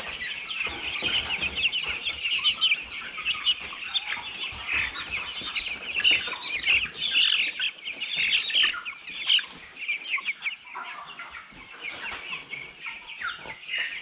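A flock of young broiler chickens peeping and clucking in a dense, continuous chatter, with small pecking taps on the metal trough feeder as they eat freshly poured feed.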